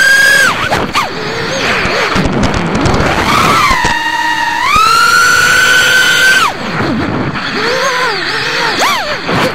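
Racing quadcopter's brushless motors and propellers whining as the throttle changes. The pitch climbs and holds high, drops away about half a second in, climbs and holds again, then falls about six and a half seconds in. Quick rising-and-falling throttle blips follow near the end.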